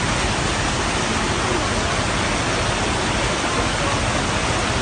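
Fast-flowing floodwater rushing steadily, a loud even sound of water.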